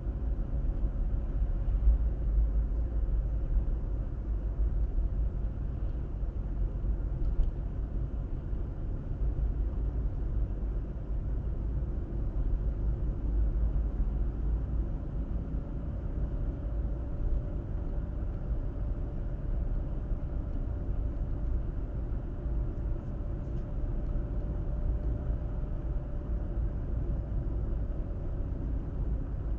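Car driving at a steady speed: a continuous low road rumble of tyres and engine, with a faint steady hum above it.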